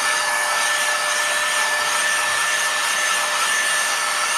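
Cordless battery-powered air duster running steadily, its small fan motor giving a rush of air with a high-pitched whine.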